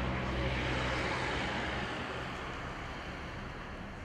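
Steady outdoor traffic noise from a motor vehicle going by: a low engine hum with a hiss of tyres that swells about a second in and fades after about two seconds.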